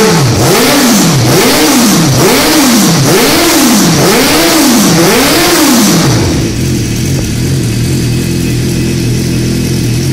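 Racing sidecar outfit's engine revved in about seven quick throttle blips, each rising and falling in pitch, then settling to a steady idle about six seconds in.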